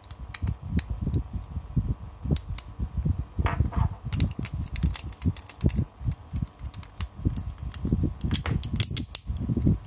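Hard plastic Beyblade parts being handled and fitted into a 3D-printed layer: a string of small clicks and taps over low rubbing handling noise, with a quick run of sharper clicks near the end.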